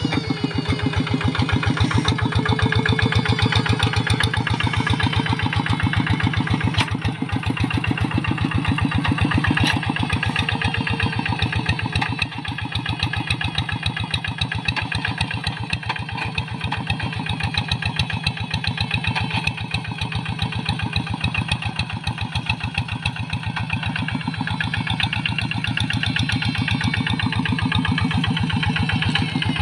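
Single-cylinder Kubota diesel engine of a two-wheel hand tractor running steadily under load while pulling a plough through dry, weedy soil, with a fast, even firing beat.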